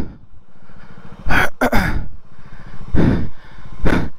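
Motorcycle engine running, broken by a series of short, sharp bursts about once a second.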